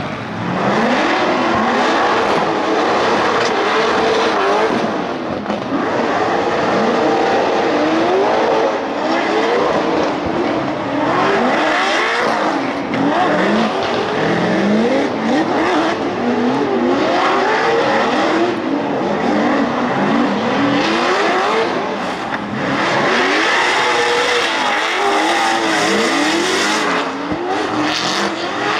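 Drift cars' high-powered engines revving hard, their pitch swinging up and down again and again as the cars slide sideways, with the screech of spinning tyres underneath. At times two cars run in tandem.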